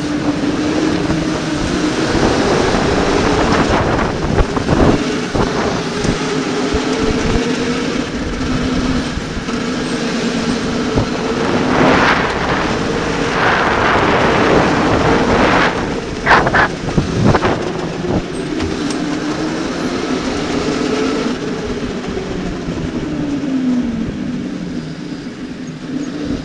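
Electric go-kart motors whining, their pitch rising and falling with speed over wind and tyre noise, with a few brief loud rushes of noise about halfway through. Near the end the whine falls in pitch as the kart slows.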